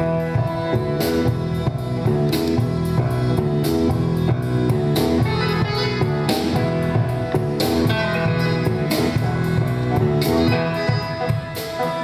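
Live ethno-jazz trio playing: grand piano with drum kit, cymbal strikes recurring about every second and a half, and a woodwind (flute) line.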